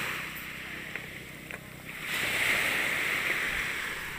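Small waves washing onto a gravelly beach: a wash of surf that eases off, then swells up again about two seconds in and slowly fades.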